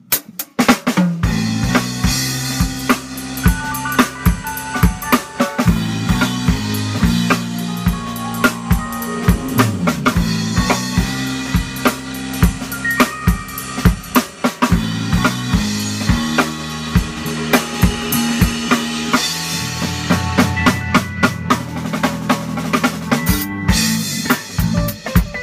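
Small band playing an instrumental: a Pearl drum kit with kick, snare and cymbals, over a stepping bass line and digital piano and electric guitar parts. Near the end everything drops out briefly before the drums come back in.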